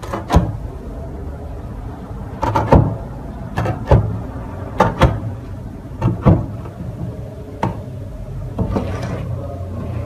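Large wide-bladed knife chopping down through a baked pide onto a wooden board: a series of sharp knocks, several coming in quick pairs, over a steady low background hum.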